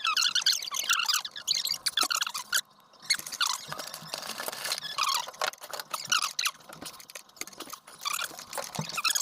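Metal threads of a plumbing angle valve squeaking as it is unscrewed, a run of short, wavering high squeaks coming turn after turn.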